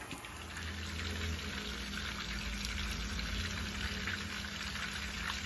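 Mojarra fish, breaded fillets and whole fish, frying in hot oil in pans: a steady sizzle over a low rumble.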